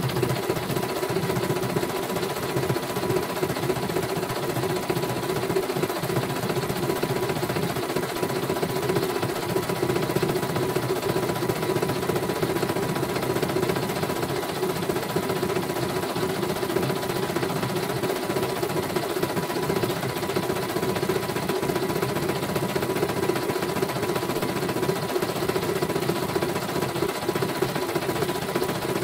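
CNY portable computerized embroidery machine stitching a design: a rapid, steady needle-stroke chatter from the sewing head, with the hoop carriage moving the fabric beneath it.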